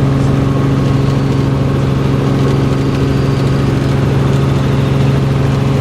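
Helicopter engine and rotor running, a loud steady drone with a constant pitch, heard from inside the cabin.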